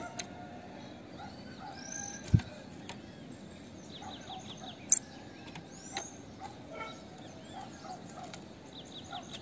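Female bananaquit calling: thin high chirps and two quick trills of short descending notes. Two sharp knocks cut in, about two and a half and five seconds in, louder than the calls.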